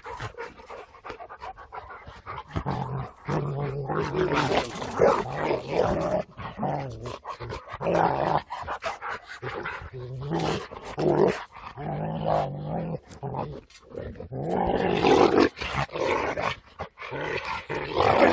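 A pit bull and a Rottweiler growling in repeated low bouts of a second or so during rough play-fighting, with scuffling noises between.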